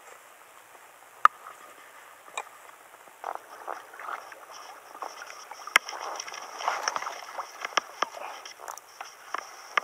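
Lake water sloshing and splashing close by, with scattered sharp clicks. The clicks are busier in the second half.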